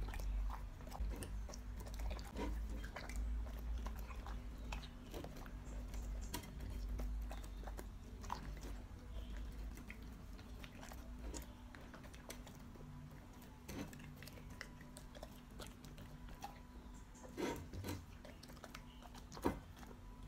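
A large dog chewing and biting chunks of vegetables from a plate, with irregular crunchy clicks; a couple of sharper clicks stand out near the end.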